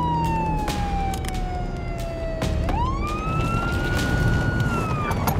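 Police car siren wailing: a slow fall in pitch, then a quick rise about two and a half seconds in, holding high before it starts to fall again near the end. Under it is the low rumble of the moving patrol car.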